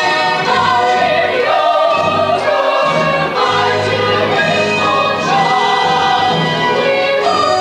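Musical-theatre ensemble singing with the band: a chorus of voices carries a song over steady instrumental accompaniment.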